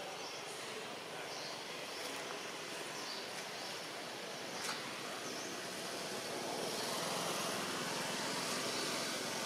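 Steady outdoor background noise, an even hiss that grows a little louder about two-thirds of the way through, with a few faint short high chirps and a single sharp click near the middle.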